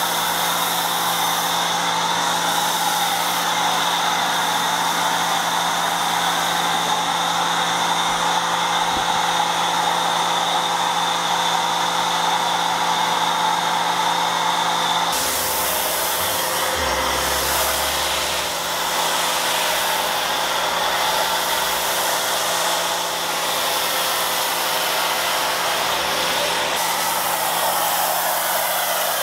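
Pressure washer running with a foam cannon on the lance, giving a steady hiss of spray over the machine's motor hum. The sound shifts about halfway through.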